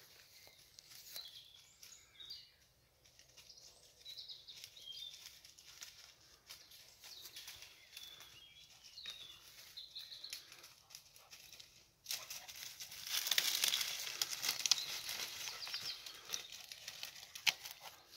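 Faint bird chirps over a quiet woodland background. About twelve seconds in, loud crunching and rustling of dry grass and twigs starts abruptly: footsteps pushing through dry undergrowth.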